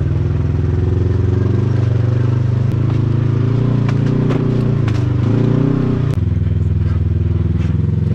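Side-by-side UTV engine running at low trail speed, its pitch stepping up and down a few times as the throttle changes. Scattered sharp clicks and clatter in the middle.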